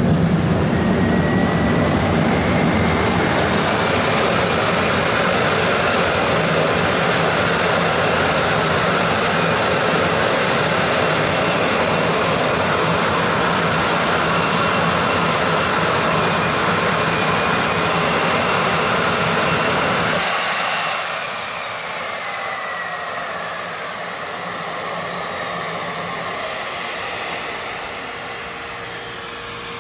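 Jet go-kart's turbine jet engine running at full power with its afterburner lit: a loud rush of exhaust with a high turbine whine that climbs in the first few seconds, then holds steady. About twenty seconds in, the engine is shut down and the whine falls away as the turbine spools down.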